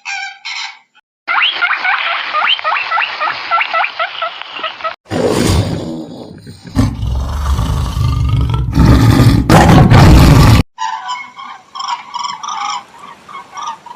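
A run of hard-cut animal calls: a few brief clucks, then a dense chorus of chirping birds, then a big cat roaring loudly for about five seconds, which is the loudest part. A different pitched animal call follows near the end.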